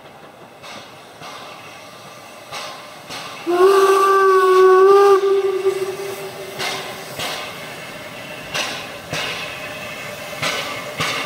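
Saxon class VII K narrow-gauge steam locomotive sounding its steam whistle once, a steady chord-like tone of about a second and a half that starts about three and a half seconds in. Under and after it come the engine's exhaust beats, growing louder as the locomotive works its train closer.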